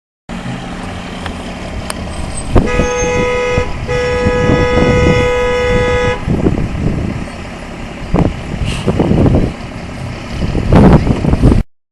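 Vehicle horn honking twice: a short toot, then a longer blast of about two seconds. Low rumbling and several loud thumps follow, the loudest near the end.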